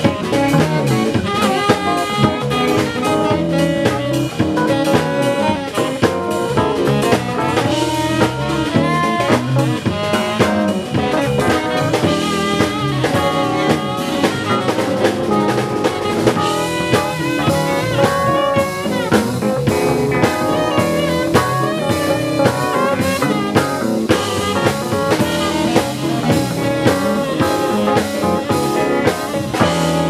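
Live band playing an instrumental break between sung verses, a drum kit keeping a steady beat under pitched lead lines.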